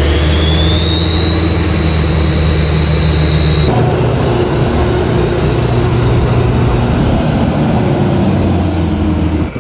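Monstermax 2's twin Duramax diesel engines running as the giant truck drives, with a high whine that rises over the first few seconds. The sound changes abruptly about four seconds in.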